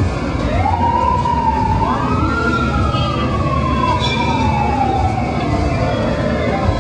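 A siren winding up in two steps and then slowly falling in pitch, over a steady rumble of street traffic.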